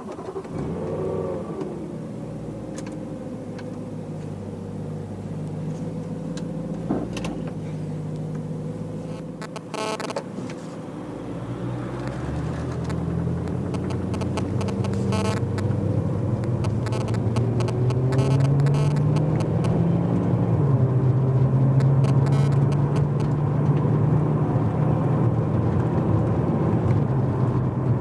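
BMW E92 M3's S65 V8 heard from inside the cabin while driving, breathing through a primary-decat X-pipe and the stock rear silencer. It is a steady low engine note that grows louder from about halfway through as the car pulls harder. A few brief electronic buzzes from phone interference on the microphone come in twice.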